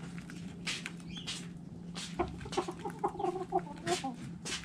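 Chicken hens clucking in a quick run of short notes from about two seconds in, over a scatter of sharp taps from hens pecking at feed.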